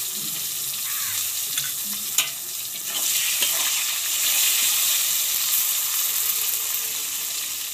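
Pieces of eggplant sizzling as they fry in hot oil in a metal karahi, stirred with a metal spatula. There is a sharp tap of the spatula on the pan about two seconds in.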